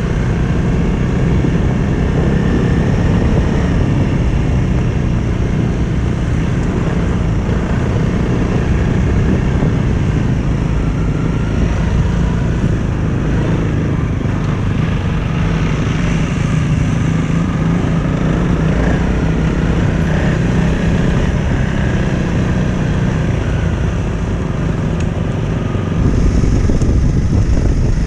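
Motorcycle engine running steadily under way on a dirt trail, with the rumble of the ride. It gets louder near the end.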